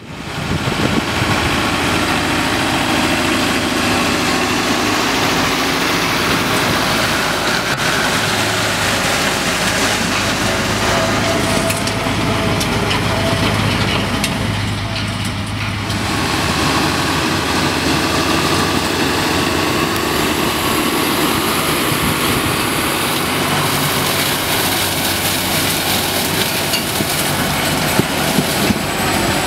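A tractor engine running steadily under load, with an Edenhall 753 three-row trailed sugar beet harvester working behind it as it lifts beet. The sound dips briefly and changes character about halfway through.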